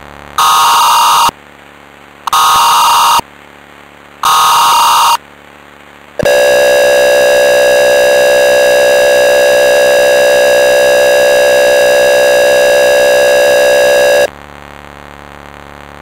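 Emergency Alert System header: three harsh data bursts about a second long, a second apart, then a steady attention tone of about eight seconds that cuts off abruptly. The sequence signals an Emergency Action Notification about to be read.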